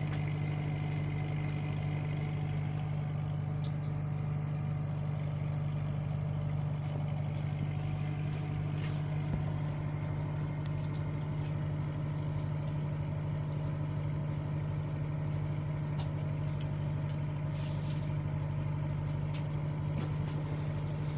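Boat engine idling, a steady low hum that does not change.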